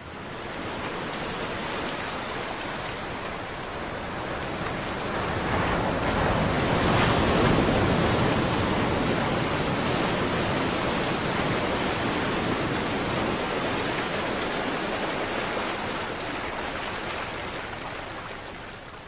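Ocean surf: a steady rush of breaking waves that swells to its loudest about a third of the way in and then slowly eases off.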